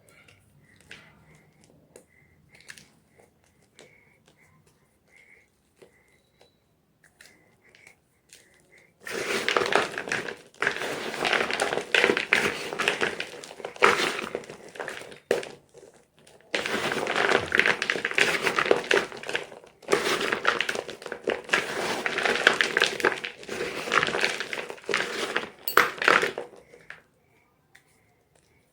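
Gym chalk crunching and crumbling in long, dense spells with short breaks, starting about a third of the way in and stopping shortly before the end; before that only faint scattered ticks.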